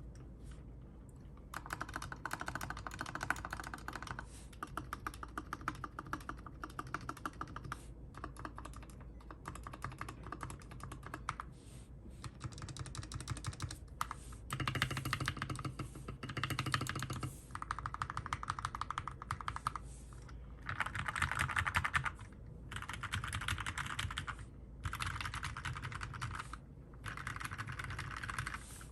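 Fast typing on a Poker 60% mechanical keyboard with Gateron Milky Yellow linear switches, lubed with Krytox 205g0 and fitted with Deskeys switch films. The keystrokes come in dense runs a few seconds long, with short pauses between them.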